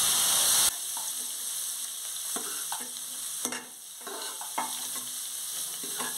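A metal ladle scraping and knocking against an aluminium pressure cooker and dish as freshly cooked rice is scooped out, with a stroke about every half second to second. It opens with a steady rushing noise that cuts off abruptly under a second in.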